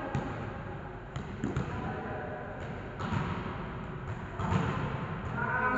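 Volleyball game: several sharp thuds about a second apart as the ball is hit and bounces on the court floor, with players' voices calling out near the end.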